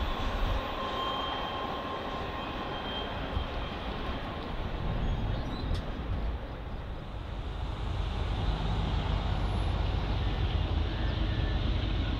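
Freight train rolling past with a steady rumble of wheels on rail, getting a little louder in the second half.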